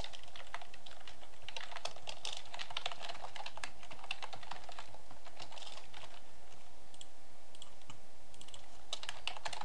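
Typing on a computer keyboard: fast runs of keystrokes that thin out to scattered taps midway, then a quick burst of keys near the end.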